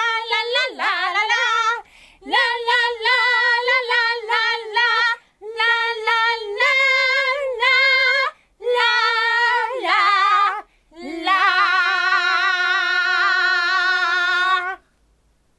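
A woman singing unaccompanied in a high puppet voice: several short sung phrases, then one long held note that stops near the end.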